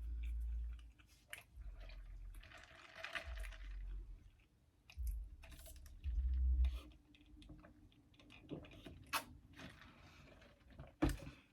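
Mouth sounds of a person chewing food close to the microphone, with soft crunches, several low thuds and a few clicks.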